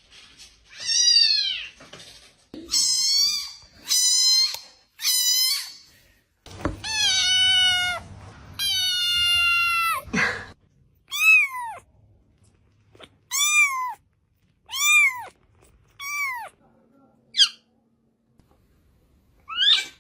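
Domestic cat meowing over and over, about a dozen meows, with two long, drawn-out ones a little before the middle and shorter ones spaced out towards the end.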